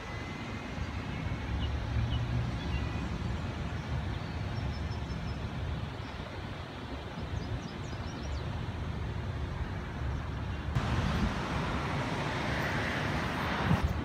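Outdoor ambience: a steady low rumble of distant road traffic, with a louder rushing hiss that comes in suddenly near the end.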